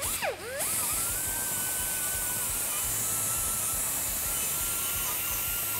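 Pneumatic die grinder with a fine sandpaper pad running against the cut edge of a steel exhaust pipe, deburring it. After a few short sweeps, it comes in about half a second in as a loud, steady air hiss with a high whine.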